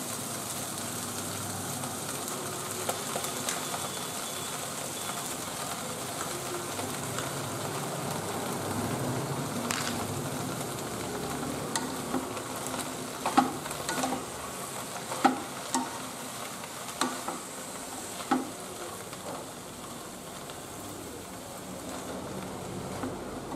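Eggplant, peas and chopped spinach sizzling in oil in a non-stick kadai while the leaves are turned over by hand. About halfway through come several short, sharp taps against the pan.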